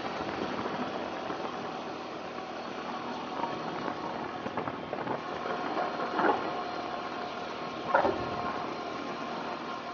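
Vehicle engine running steadily at a low level, with a few brief fainter sounds over it.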